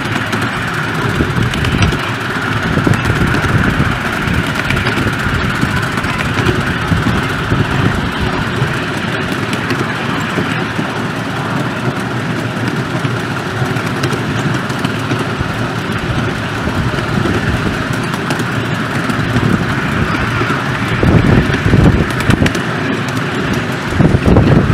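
A 7¼-inch gauge miniature steam train, hauled by a model GWR 38xx locomotive, running along its track: a steady rumble and clatter of wheels on rail, with louder stretches near the end.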